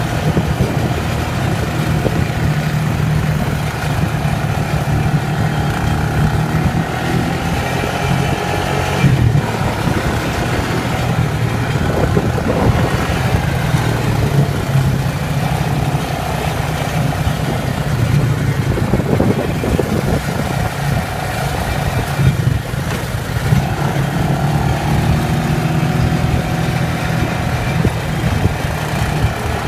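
ATV (quad bike) engine running steadily under way, its note rising and falling a little now and then.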